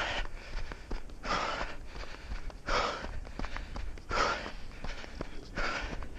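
A jogger's heavy, rhythmic breathing, loud close-up exhalations about once every second and a half, with faint footfalls on a snowy track.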